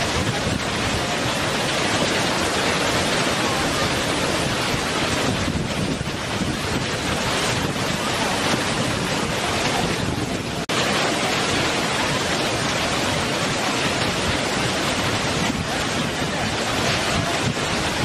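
Waterfall: a steady, loud rush of water pouring over rock, with a brief dip about ten seconds in.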